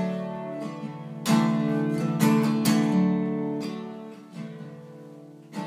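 Acoustic guitar strummed, several chords in the first few seconds ringing out and fading, then another strum near the end.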